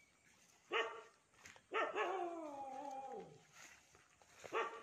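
A dog barking: one short bark about a second in, a long call falling in pitch over the next two seconds, and another short bark near the end.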